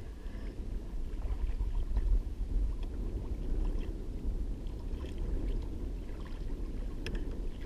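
Wind rumbling on the microphone over water lapping against a kayak hull, with a few faint clicks.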